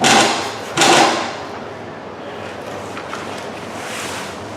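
A diamond painting canvas and its plastic cover film crinkling as they are lifted and flexed: two loud rustles in the first second and a half, then softer rustling.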